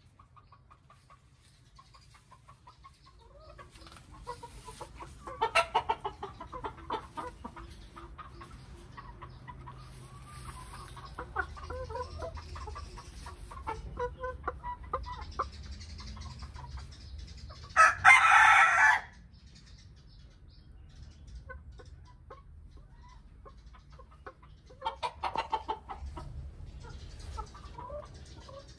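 Chickens clucking: scattered short clucks from the hens and rooster, one loud call lasting about a second just past the middle, and a quick run of clucks near the end.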